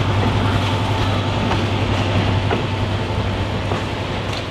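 Scenic-railway passenger train running: a steady low hum under an even rumble, with a few faint clicks.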